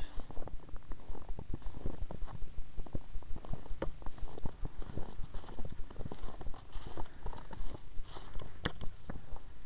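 Footsteps on thinly snow-covered ground: an irregular run of light knocks and clicks, with a sharper click near the end.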